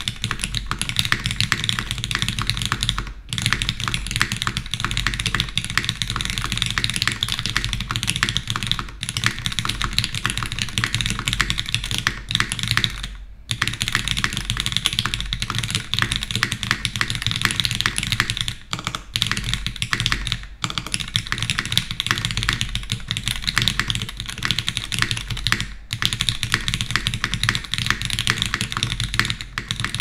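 Steady fast typing on a TGR Jane v2 CE mechanical keyboard: lubed, diamond-polished Cherry MX Black linear switches in an aluminium plate on an O-ring mount, with GMK keycaps. The keystrokes run together with a few brief pauses, the clearest about thirteen seconds in.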